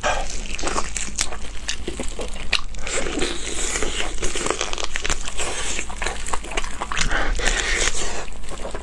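Close-up biting and chewing of a pig's trotter, the skin and tendon chewy rather than tender, with many quick clicks and crunches through the chewing.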